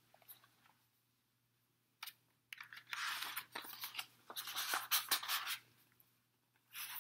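Pages of a hardcover picture book being turned and handled: a crisp paper rustle in several strokes, starting about two seconds in and dying away by about five and a half seconds.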